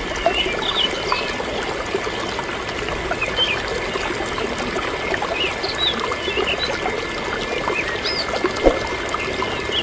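Water pouring and trickling steadily from the spout of a motor-driven mini hand-pump into a small plastic trough, with scattered little splashes and drips.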